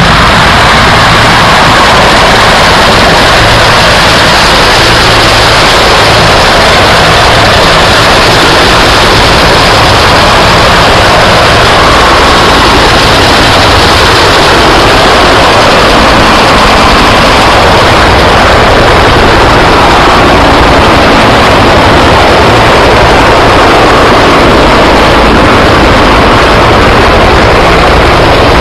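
Several Bell UH-1 Huey military helicopters lifting off and flying low overhead, their rotor and engine noise loud and steady throughout.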